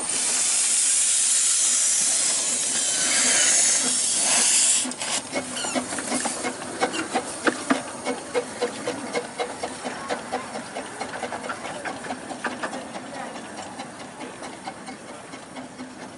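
Miniature 12¼-inch gauge steam locomotive blowing off a loud, steady hiss of steam for about five seconds, then puffing and clicking as it pulls away, the sound fading as it goes.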